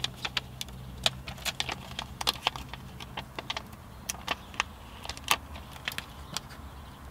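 Plastic biohazard specimen bag crinkling as fingers fumble at opening it: a run of irregular small crackles and clicks.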